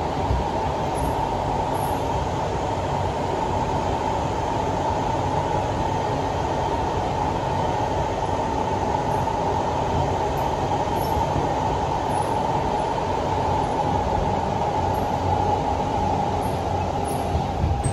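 Siemens C651 metro train heard from inside the carriage while running: a continuous rumble of wheels on track with a steady high hum, which drops slightly in pitch near the end.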